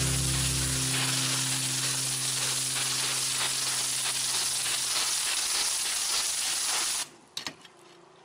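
Low-pressure water spray from a pressure-washer wand hitting roof tiles: a steady hiss that cuts off suddenly about seven seconds in, followed by a couple of faint clicks.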